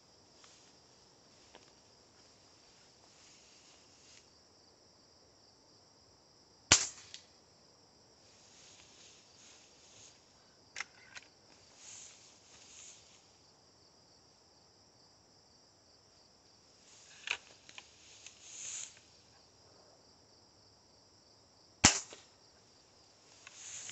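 Two sharp shots from a Hatsan 125 .22 spring-piston break-barrel air rifle, about fifteen seconds apart, with a few fainter clicks between them. A steady chorus of insects runs underneath.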